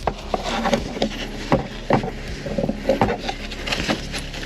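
Irregular knocks, clicks and scrapes of hand tools working the nut on the top mount of a BMW E92's rear shock absorber. The nut is spinning on its washer instead of tightening down.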